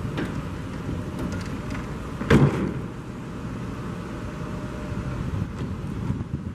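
A truck's engine running with a steady low rumble, and a single loud knock about two seconds in.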